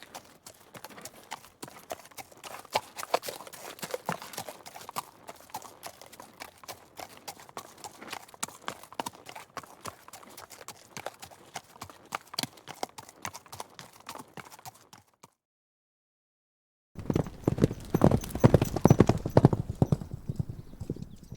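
Horse hooves clip-clopping on hard ground, a quick irregular run of sharp knocks. About 15 s in it cuts to silence for a couple of seconds. Then a louder, heavier run of hoofbeats with more bass plays for about four seconds.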